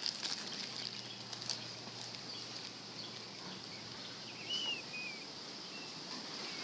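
An animal crunching a carrot, with a few short crisp chews in the first second and a half. Insects drone steadily throughout, and a bird chirps briefly about four and a half seconds in.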